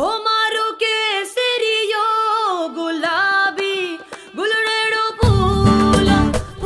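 Song on the soundtrack: a single female voice sings a melodic line with bending, held notes while the bass and beat drop out, then the full backing comes back in about five seconds in.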